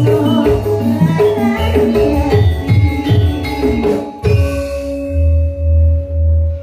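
Campursari band playing through a PA sound system: a struck mallet-percussion melody over bass. About four seconds in the music breaks off and lands on a held closing chord with a pulsing bass.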